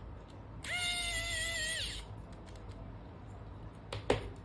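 Pen-style electric precision screwdriver running for about a second, a steady whine that dips slightly as it stops, while driving a small M2 screw into a servo bracket. Near the end comes a short knock, as the screwdriver is set down on the mat.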